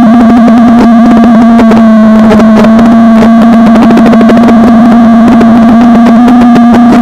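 FPV quadcopter's onboard audio: a loud, distorted, steady buzz at nearly one pitch, with a crackle all through it.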